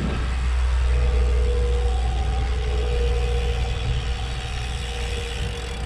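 Wind noise on a GoPro's microphone while riding a road bike: a steady low rumble with road noise. A faint steady hum sits under it from about a second in until near the end.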